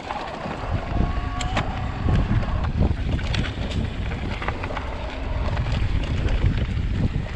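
Wind buffeting the camera microphone on a fast mountain e-bike ride over rocky trail, with clicks and rattles from the bike. The whine of the Shimano Steps E8000 mid-drive motor under pedalling assist is heard at first and fades out about a second and a half in.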